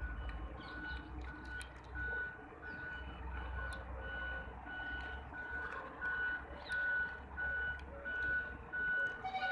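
A vehicle's reversing alarm beeping steadily at one pitch, about two beeps a second, over a low rumble. Irregular sharp ticks of beaks pecking at a plate of rice run underneath.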